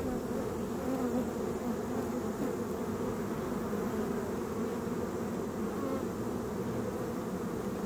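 Many honeybees buzzing around an opened hive: a steady, dense hum of overlapping wingbeats.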